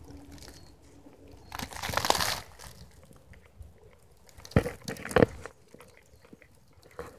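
Dry fallen leaves crunching and rustling, loudest in one crackling burst about two seconds in, followed by two dull thumps a little over half a second apart.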